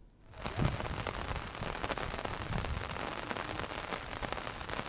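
Steady heavy rain falling, a dense hiss with many fine taps of single drops, coming in suddenly just after the start.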